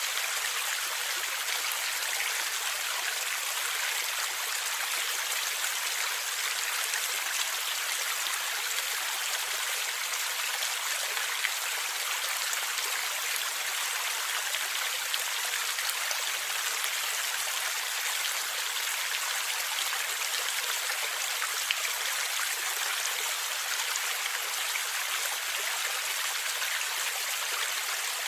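Stream water flowing and gurgling steadily as an even rush, with a few faint sharper splashes.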